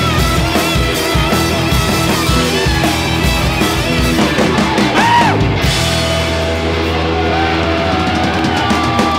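Live punk/hardcore band playing loud, with distorted electric guitar, bass and fast drumming. About six seconds in, the full drumming drops away and the guitar and bass ring on in held notes.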